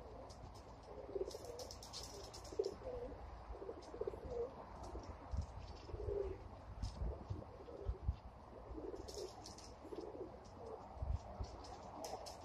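Domestic pigeons cooing repeatedly, short low murmuring coos every second or so, with scattered light clicks.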